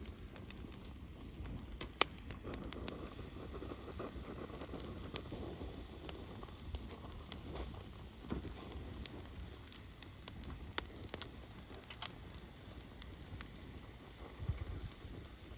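Wood fire burning, crackling with irregular sharp pops over a low steady rush.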